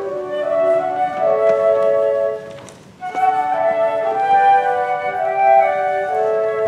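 Two flutes playing a slow duet in two interweaving melodic lines. About two and a half seconds in the phrase fades to a brief pause, and the playing picks up again about three seconds in.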